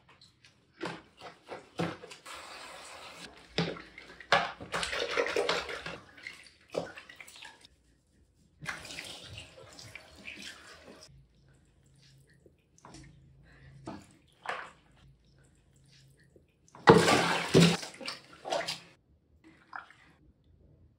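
Water splashing and dripping as a wet kitten is bathed and dipped in a plastic tub of water: irregular splashes and trickles, with the loudest, longest splash about three-quarters of the way through.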